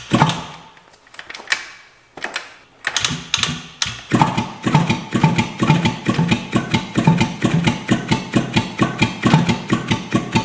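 The Suzuki GT185's electric starter turns the two-stroke twin over slowly and weakly, in an even beat of about three a second, and the engine does not fire. A click and a couple of short stabs at the starter come first, then steady cranking from about three seconds in. The starter is labouring on a weak battery against cylinders loaded with oil.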